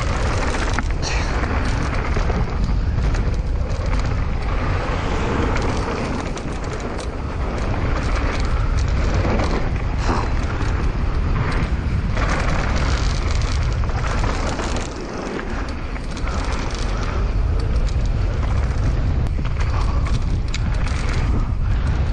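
Heavy wind buffeting on the microphone with steady tyre-on-dirt noise and frequent rattles and knocks from a mountain bike riding down a bike-park trail. The rumble eases briefly about two-thirds of the way through.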